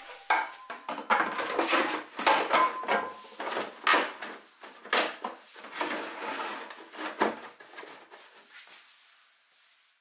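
Pottery wheel splash pan being handled and fitted around the wheel head: a run of irregular knocks, clatters and scrapes that die away near the end.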